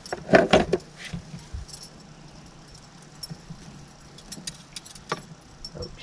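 Metal clinks and rattles of fishing gear handled in an aluminium boat: a quick cluster in the first second, then scattered single clicks.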